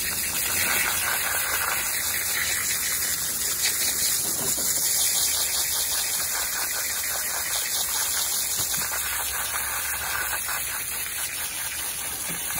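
Pressure washer jet spraying steadily, blasting mud off a cast-aluminum anthill and spattering it across a plastic folding table: a continuous loud hiss of water.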